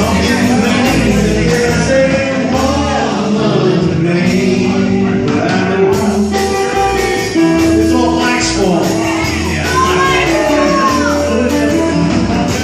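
Rock and roll band music playing at a steady loud level, with held guitar-like notes over bass and drums and no clear sung words.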